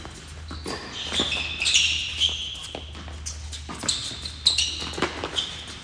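Tennis rally on an indoor hard court: sharp racket-on-ball strikes and bounces, with short high squeaks of sneakers on the court surface as players move. A low steady hum runs underneath.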